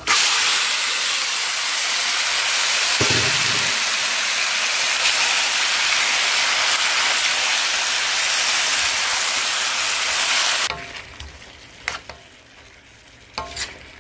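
Seasoned chicken pieces sizzling hard in a pot of browned, caramelised sugar: a loud, steady hiss that starts at once as the chicken goes in and cuts off suddenly about three-quarters of the way through. A few light clicks follow.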